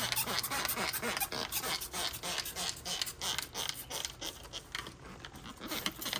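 Trigger sprayer pumped rapidly, about six short spray hisses a second, misting degreaser onto the baked-on grease inside a barbecue firebox.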